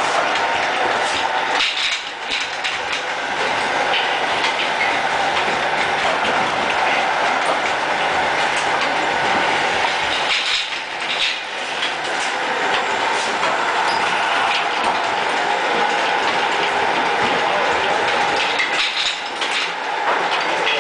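Automatic bottling line running: a steady mechanical clatter of the conveyor, with frequent clicks and clinks from glass bottles being pushed along it.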